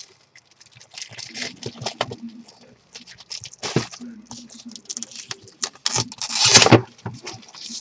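Loose plastic wrapping crinkling as it is pulled off a small cardboard retail box, then the box handled with light knocks and rustles, and a loud cardboard scrape about six seconds in as its top flap is worked open.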